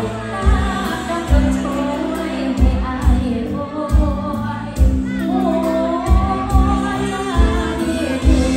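Live band: a woman sings a Thai song over keyboard, electric guitars, bass and a drum kit with a steady kick-drum beat, heard through the camera's own microphone in the room.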